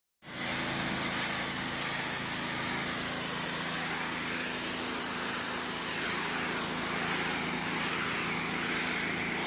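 Pressure washer running steadily, its high-pressure spray hissing against a concrete slab over a low, even machine hum.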